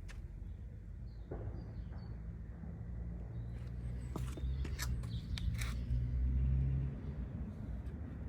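Low rumble of a car rolling slowly, building to its loudest about six seconds in and then easing, with a few sharp clicks around the middle.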